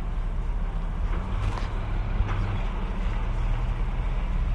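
A motor vehicle's engine running steadily: an even, low hum.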